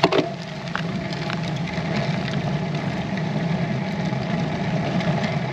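Wind and road noise on the microphone of a camera mounted on a road bike rolling off slowly, heard as a steady rumble, with one sharp click right at the start.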